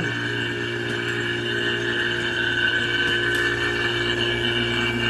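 Refrigeration vacuum pump running with a steady, even hum, evacuating a freezer's sealed system after the new compressor was brazed in.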